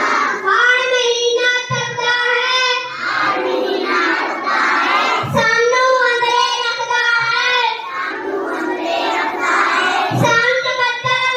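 A child singing alone in a high voice, holding long notes and pausing briefly between phrases.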